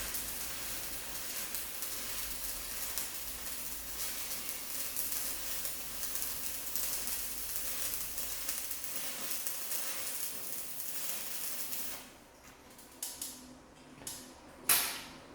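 Stick-welding arc from a rechargeable battery-powered welder, crackling and sizzling steadily as an electrode burns down, then cutting off about twelve seconds in. A few sharp taps follow, the loudest near the end.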